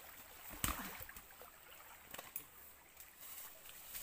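Faint running water, with a few light knocks, the clearest about half a second in.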